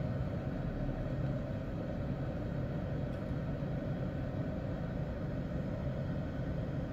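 Steady low vehicle rumble heard from inside a car's cabin, even throughout with no distinct events.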